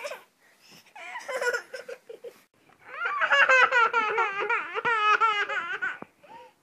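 A high-pitched, wordless voice in quick wavering pulses: a short burst about a second in, then a longer run from about three seconds in until near the end.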